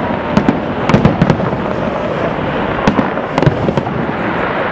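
Fireworks display: a continuous din of aerial shell bursts with irregular sharp bangs and crackles, thickest about a second in and again after three seconds.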